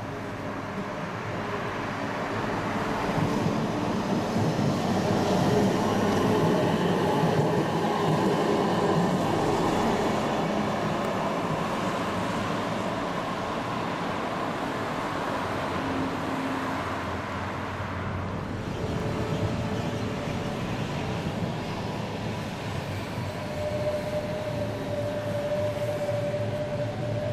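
Articulated electric trams running on street track: the rumble of wheels and running gear swells as a tram passes close, and a steady whine comes in near the end as another tram draws in to the stop.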